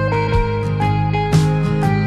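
Background music led by guitar: plucked notes and strums over sustained chords, with a stronger strum about a second and a half in.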